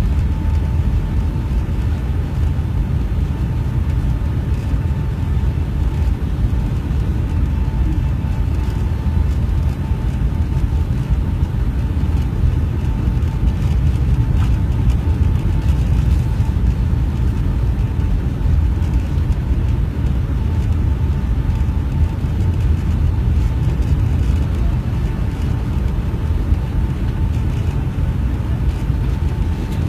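Airliner cabin noise during the descent to land: a steady, loud low rumble of the jet engines and airflow, with a thin steady whine held throughout.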